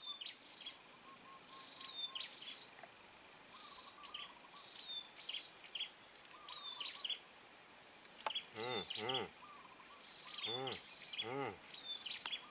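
Swamp ambience: a steady high-pitched drone of insects with repeated short bird chirps. Two short runs of lower, arching calls come about eight and ten and a half seconds in.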